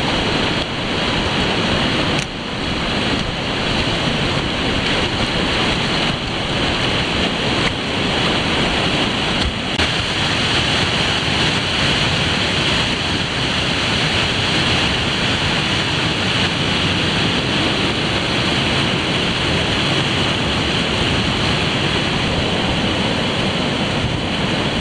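Whitewater rapids rushing over rocks and ledges: a loud, steady wash of water noise, with a few brief shifts in level.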